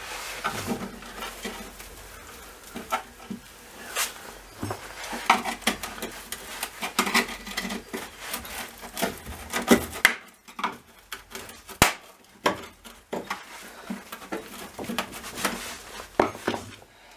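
Irregular clicks, knocks and light rubbing of small hard objects being handled, with a brief lull about ten seconds in.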